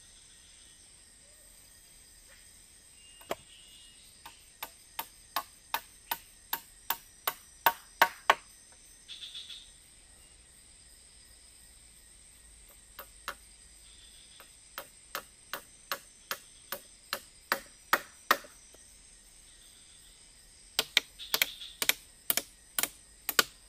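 Runs of sharp, evenly spaced knocks, about three a second, growing louder within each run and loudest about eight seconds in: repeated blows of a tool on wood.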